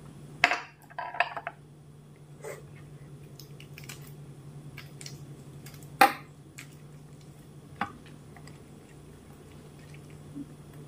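Fingers mashing banana slices into milk-soaked rice in a steel plate: wet squishing with sharp clicks of fingers against the steel. The loudest clicks come about half a second in and at six seconds, over a low steady hum.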